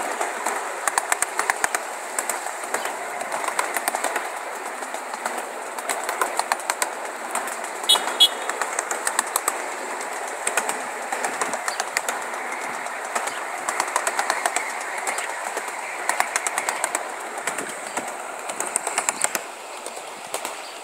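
1-inch-scale ride-on miniature train rolling along its track: a steady running rumble with frequent clicks and clacks of the wheels on the rails, two sharper clacks about eight seconds in.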